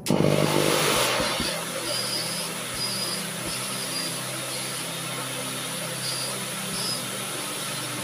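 Philips Impact 1300 W canister vacuum cleaner motor starting abruptly, loudest for about the first second, then running steadily with its TRIAC speed control bypassed, while suction is tested at the end of the wand.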